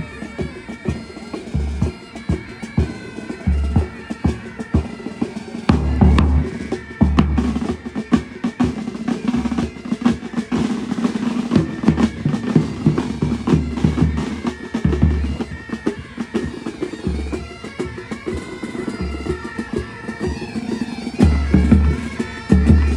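Military pipe band playing: bagpipes over quick snare drum strokes, with heavy bass drum beats every second or two.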